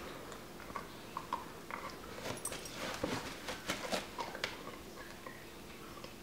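A puggle gnawing on a Fall Fetch Stick chew toy: irregular soft clicks and knocks of teeth working the stick.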